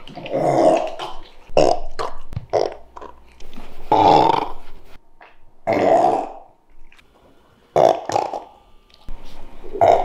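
Shiba Inu dog burping, a string of about half a dozen separate burps, the longest and loudest about four seconds in.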